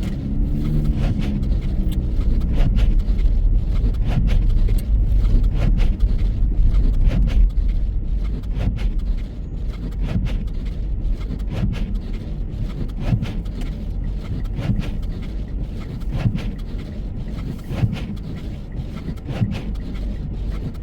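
Car driving on snow-covered roads: a steady low rumble of engine and tyres, with frequent short knocks and clicks.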